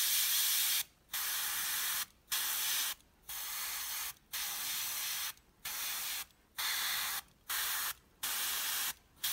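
Airbrush spraying in short hissing bursts, about nine of them roughly a second apart, as the trigger is pressed and released to mist paint onto the raised areas of a miniature shield.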